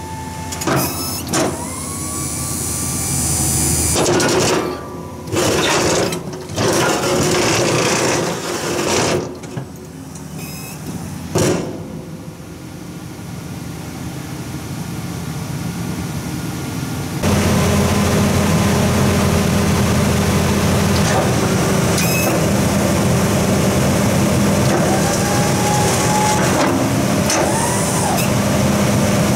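Western Wideout plow's electric-hydraulic pump running in separate bursts of a second or two as the wings and blade move, then running steadily from about halfway on. The truck's engine runs underneath throughout.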